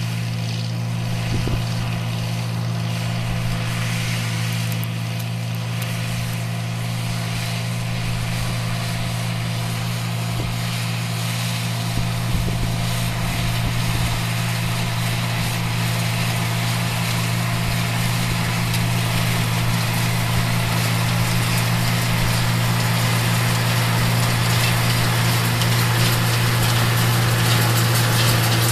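Oliver 1750 tractor engine running steadily, pulling a Massey Ferguson 124 square baler with a bale thrower while baling hay. It grows gradually louder toward the end.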